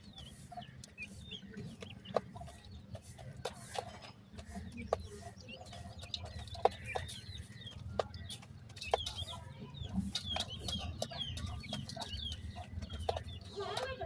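Young grey francolins giving short, high chirps and peeps while pecking and scratching in gravel. Their beaks and feet on the stones make scattered sharp ticks. The chirping gets busier in the second half.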